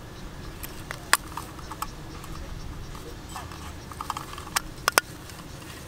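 Sharp metallic clicks and taps from a small hinged mint tin and its carabiners being handled as the lid is flipped open, over a low steady rumble; a close pair of louder clicks comes about five seconds in.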